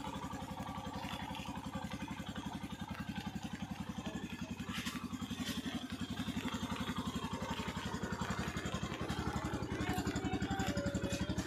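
Yamaha FZ-X motorcycle's single-cylinder engine idling with an even, steady beat, a little louder near the end.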